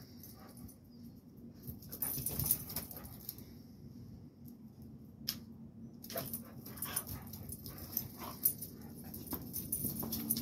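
A Rottweiler and a blue pit bull squaring off: short, scattered dog sounds, a cluster about two seconds in and more from about six seconds on.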